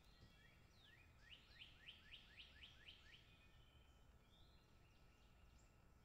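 Northern cardinal singing softly: a quick run of about eight rising whistled notes, then a few softer held whistles, with faint outdoor background noise.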